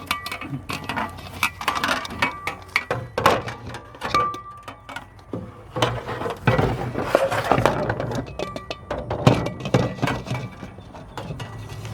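Irregular clinks, knocks and clatter of tools and materials being handled and moved about on a workbench.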